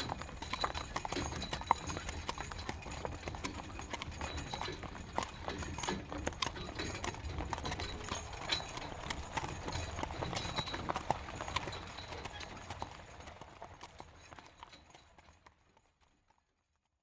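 Horse-drawn carriage on the move: a horse's hooves clip-clopping at a walk over the low rumble of the carriage, fading away near the end until it is gone.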